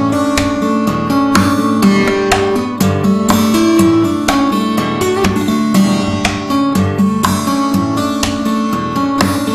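Music: strummed acoustic guitar, with chords struck in a steady rhythm about twice a second.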